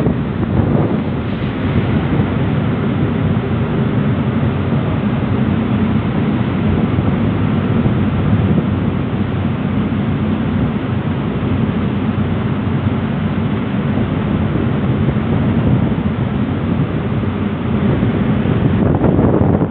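Passenger ferry under way: its engines run with a steady low drone, mixed with wind buffeting the microphone and water rushing past the hull.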